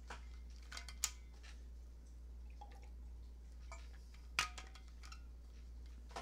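Quiet room tone: a steady low hum with a few faint, short clicks and taps, the sharpest about a second in and about four and a half seconds in.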